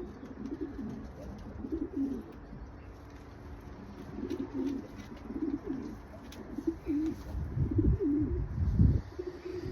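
Domestic pigeons cooing, with repeated low calls throughout. Two low thumps near the end are the loudest sounds.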